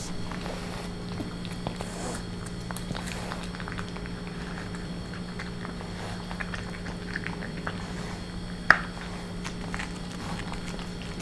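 French bulldog puppy eating kibble mixed with chicken breast and tuna from a plastic bowl: an irregular run of small chewing clicks and crunches, with one sharper click about nine seconds in, over a steady low hum.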